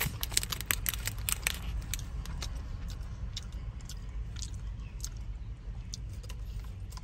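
Someone chewing a dense dark chocolate energy square with sunflower and sesame seeds in it: crunchy clicks come thick for the first second and a half, then sparser. A steady low rumble runs underneath.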